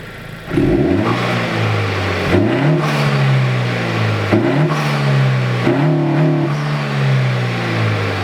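2022 Honda Civic Si's L15B7 1.5-litre turbocharged four-cylinder engine free-revving in about four throttle blips, each rising and dropping back, then settling to a steady idle near the end. Heard from the front of the car with the hood closed.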